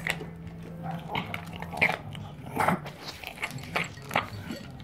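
Small dog eating dry kibble from a bowl: irregular crunching bites, about two or three a second, over a steady low hum.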